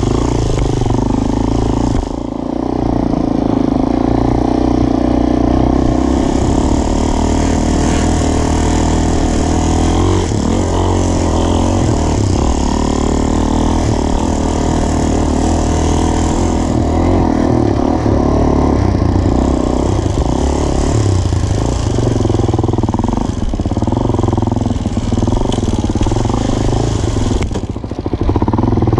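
Dirt bike engine running continuously under changing throttle while riding a rough trail, its pitch rising and falling. The throttle briefly drops about two seconds in and again near the end.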